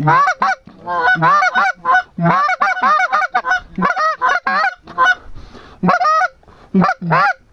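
Duck call blown close by in strings of loud, quick quacks, several runs broken by short pauses, calling to ducks flying in.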